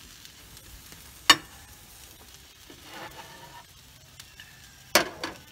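Faint sizzle from a Blackstone flat-top griddle as the last cooked meat is scraped up, with a sharp metal clack about a second in and another loud clack near the end.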